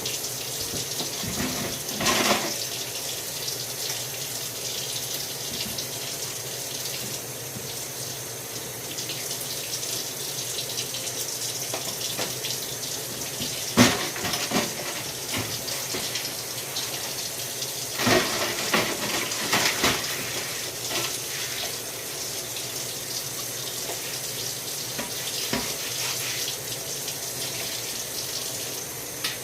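Tap water running steadily into a sink, with a few sharp knocks and clatters: one about two seconds in, a louder one near the middle, and a cluster a little after.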